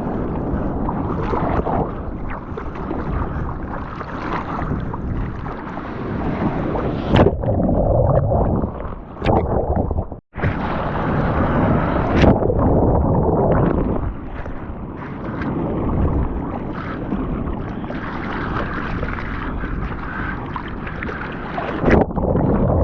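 Water rushing and splashing around the camera in the surf, with wind buffeting the microphone; the sound cuts out for an instant about ten seconds in.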